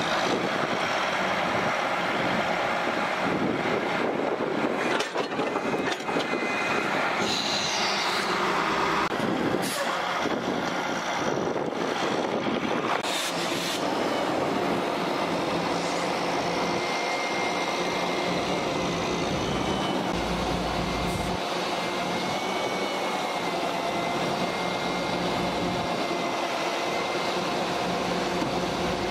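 Heavy diesel engine running steadily under load as a rotator tow truck lifts a wrecked semi-truck cab on its winch cables, with a freight train rolling past. A few brief sharp hisses or clanks come through in the middle.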